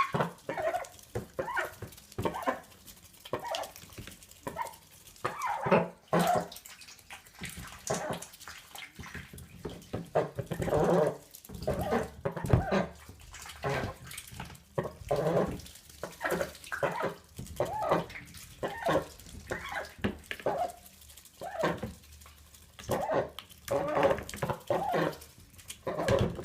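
Ducks eating lettuce from a bowl of water: a rapid, irregular run of wet slurping and splashing as their bills dabble in the water.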